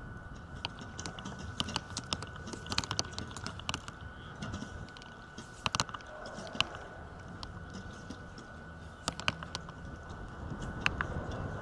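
Wind rumbling on the microphone, with scattered sharp clicks and taps throughout, the loudest about six seconds in, and a faint steady high tone.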